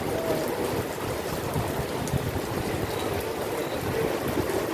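Heavy downpour: rain falling steadily on a paved street and splashing into standing water, an even rushing hiss.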